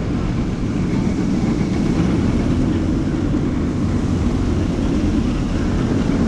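Jurassic World VelociCoaster roller-coaster train running along its steel track, a loud, steady rumble.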